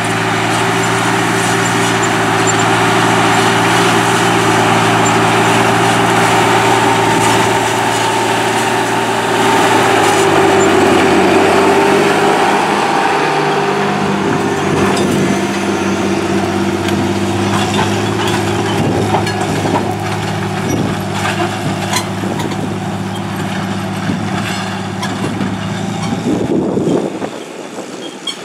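John Deere 8300 tractor's six-cylinder diesel running steadily under load as it pulls a Case IH 5400 grain drill past, with the drill's disc openers rattling and clanking as they go by. The sound drops off suddenly about a second before the end as the rig moves away.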